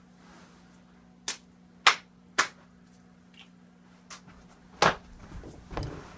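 Hands slapping and clapping together in a two-person handshake routine: about half a dozen sharp slaps at uneven intervals, the loudest about two seconds in and just before five seconds in, with softer thuds of movement near the end.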